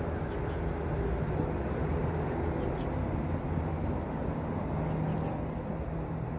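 Steady low hum of a running vehicle engine.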